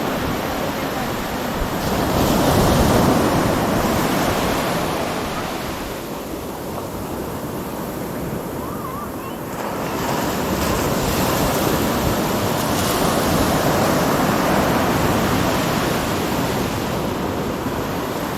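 Ocean surf washing onto the beach, swelling louder twice as waves break and run up, with wind rumbling on the microphone.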